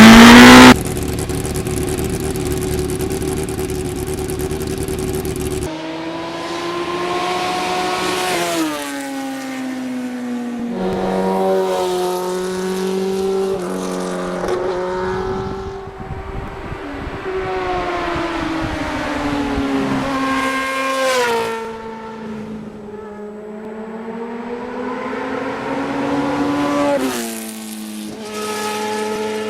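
1991 Yamaha FZR1000's inline-four engine under way: its pitch climbs as it accelerates and falls back at each gear change, several times over. It opens with a very loud second of engine and wind noise.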